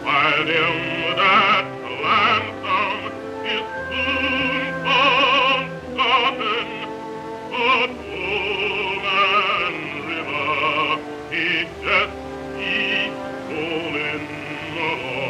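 A deep male voice sings a slow song in sustained phrases with wide vibrato, in a trained, operatic style, over instrumental accompaniment. It is an early sound-film recording.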